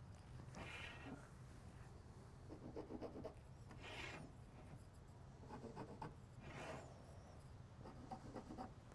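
A marker drawing lines on a wooden stick: faint, short scratching strokes, about six of them spread over several seconds.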